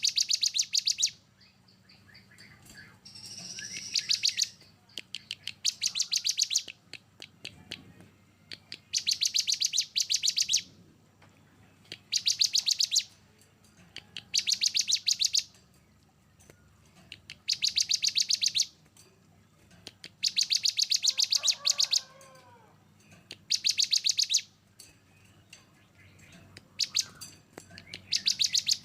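A songbird singing harsh, rapid rattling bursts, the dense 'tembakan' phrases of masteran training song for competition birds. Each burst is about a second of fast, clicking notes, repeated every two to three seconds, with a few softer, sliding notes between them.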